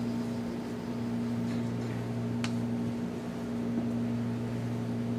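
Steady mechanical room hum with two constant low tones, and a single sharp tap about halfway through.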